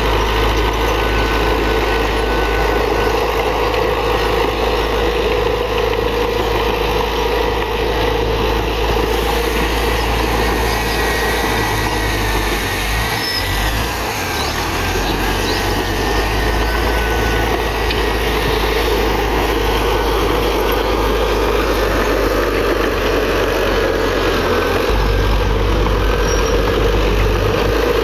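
Komatsu D31PX bulldozer's diesel engine running steadily with a deep rumble while working, a faint high squeal coming and going in the middle.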